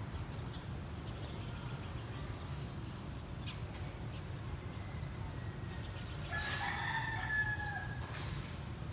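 A rooster crowing once, about six seconds in, one drawn-out call of roughly two seconds, over a steady low background rumble.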